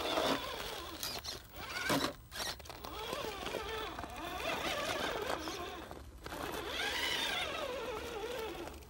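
Geared electric motor of a Traxxas TRX-4 Sport RC crawler, a Holmes Hobbies 12-turn Trailmaster Sport 550 brushed motor, whining as it drives the truck over rubble. The pitch rises and falls with the throttle, with short breaks about two seconds and six seconds in.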